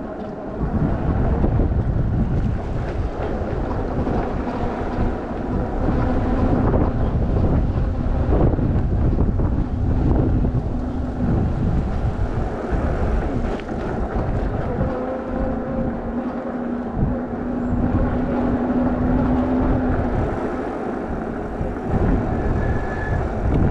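Wind buffeting the microphone on a Super73 electric bike being ridden at speed, over a steady low hum from the bike's electric motor.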